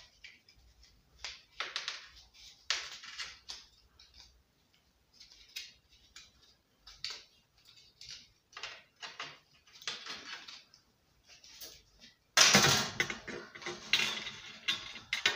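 Plastic recoil starter pulley and coiled steel spring from a Subaru lawnmower engine handled by hand: scattered light clicks, taps and scrapes as the spring is wound into the pulley, with a louder burst of clatter about twelve seconds in.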